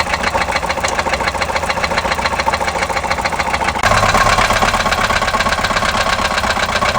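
Toyota Corolla engine running with a rapid, even knocking: an engine knock. It gets louder about four seconds in.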